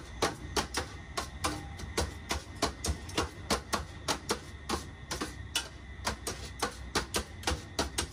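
A knife and a spatula chopping shaved shawarma chicken on a steel tray: quick metal-on-metal clacks, about three or four a second, over a low steady hum.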